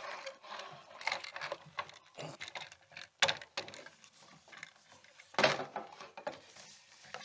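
Rummaging in a leather suitcase as a wooden coat stand is pulled up out of it: scattered knocks and clatters of wood and packed items, with two louder knocks about three and five and a half seconds in.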